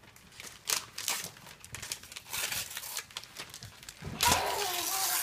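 Gift-wrapping paper crinkling and tearing in short rustles as a present is unwrapped, with a louder, longer rip about four seconds in and a voice sounding over it.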